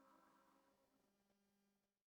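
Near silence: the tail of a horror ambience effect, faded away to nothing.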